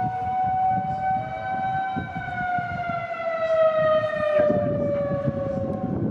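Outdoor tornado warning siren sounding a sustained two-note chord, its pitch sagging slowly over the last few seconds, with rough noise underneath.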